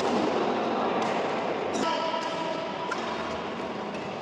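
Badminton rackets striking a shuttlecock during a drill: a few sharp hits about a second apart, with voices in the background.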